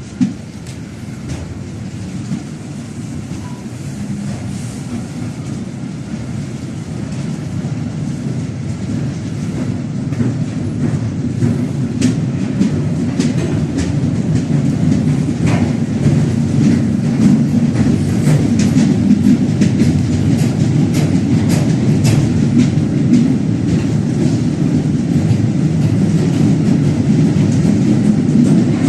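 Freight train wagons rolling past, a steady rumble growing louder, with rattling clacks of the wheels over rail joints and a brief wheel squeal about halfway through.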